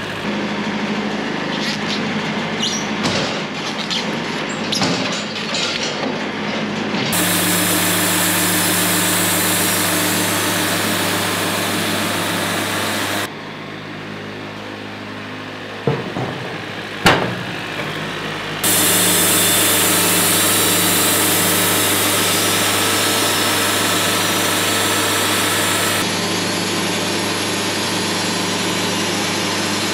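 Diesel engine of a Wood-Mizer portable sawmill running steadily, with clanks and knocks from the log-handling gear in the first few seconds. The bandsaw blade cutting through an oak log adds a loud, even hiss from about seven seconds in to about thirteen, and again from about nineteen to twenty-six seconds, with two sharp knocks in between.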